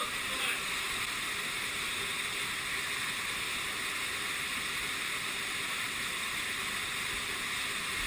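Steady rush of a waterfall pouring down a rocky gill, close to the microphone.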